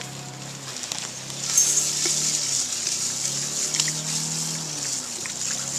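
Malted grain poured by hand into a mesh grain bag in a pot of water for the mash, a steady pouring hiss that starts about a second and a half in.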